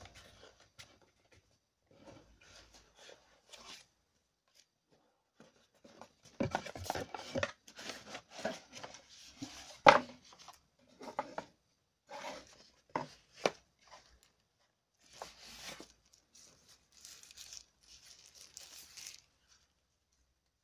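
Cardboard box parts and a plastic bag handled during unpacking: irregular rustling, scraping and tearing noises, with one sharp click about halfway through.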